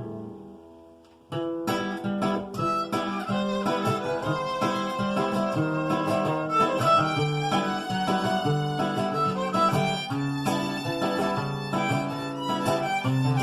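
Instrumental music: a violin playing over a plucked acoustic guitar. The previous phrase dies away into a brief lull, and the playing starts again suddenly about a second in.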